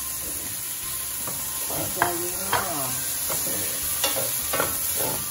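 Chopped vegetables sizzling in butter in a stainless steel pan, stirred with a wooden spoon, with a few short scrapes of the spoon across the pan about two and four to five seconds in.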